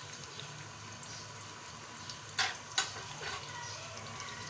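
Sliced onions beginning to fry in oil in an aluminium pot, a faint steady sizzling hiss, with two sharp clicks in quick succession about halfway through.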